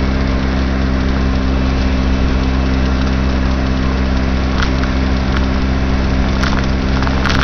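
2006 Baja SC50 moped engine running at a steady, unchanging pitch while riding, under a constant rush of wind and road noise. A few brief knocks sound over the last few seconds.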